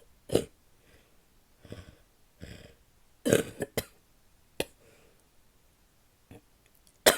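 A woman coughing in separate sharp coughs: one just after the start, a quick run of three around three and a half seconds, another near five seconds, and the loudest right at the end. Breaths are drawn in audibly between them.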